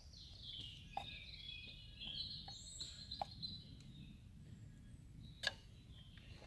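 A songbird singing a run of high, warbling phrases for the first four seconds or so, with a few light clicks and knocks scattered through.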